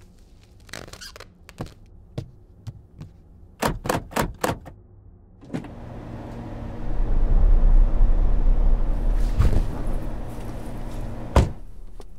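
Car door handle and door clicking and knocking, with a quick run of four sharp knocks, then a steady noise with a deep rumble that swells and fades, ending with a single sharp thump.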